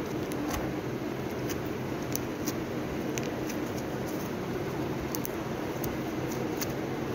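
Slime squeezed and pressed by hand in a container close to the microphone, giving irregular small clicks and pops about once or twice a second over a steady hiss.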